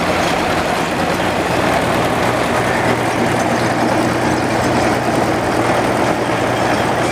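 Engine running steadily at a constant speed, with the clatter of baling machinery behind it: the power unit of a horse-drawn round baler at work.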